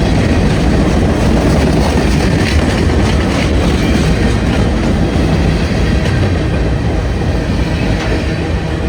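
Union Pacific freight train rolling past, a steady loud rumble of wheels on the rails.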